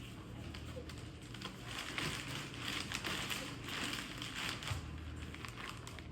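Cardboard and foam packaging being handled and pulled apart: rustling and scraping with many small crackling ticks, busiest in the middle of the stretch, over a faint steady low hum.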